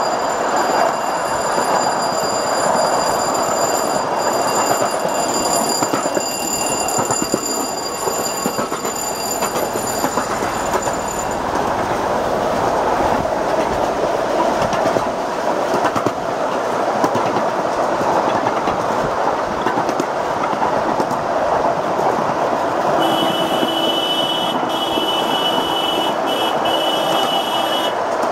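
Miniature train in motion, heard from a riding passenger car: a steady rumble and clatter of the cars running on 7.5-inch gauge track. A thin high whine runs through the first third and returns near the end.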